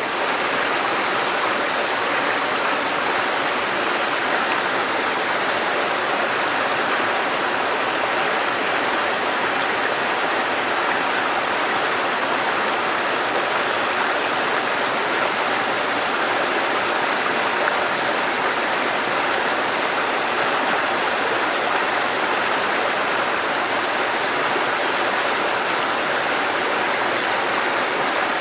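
Shallow river or stream babbling: a steady, even rush of flowing water.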